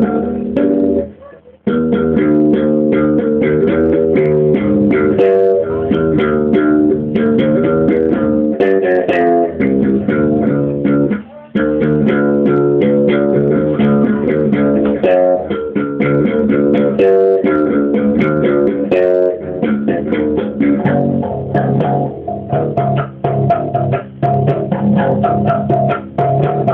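Bass guitar played slap-style: a fast, unbroken run of percussive slapped and popped notes, with short breaks about a second and a half in and again about eleven seconds in.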